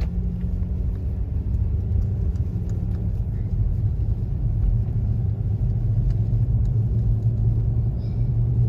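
Toyota Tacoma pickup driving on a snowy road, heard from inside the cab as a steady low engine and road rumble. The engine note drops about three seconds in and grows louder toward the end as the truck pulls away.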